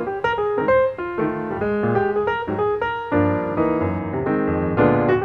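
Background music: a melody of quick, separate notes, filling out with fuller chords about three seconds in.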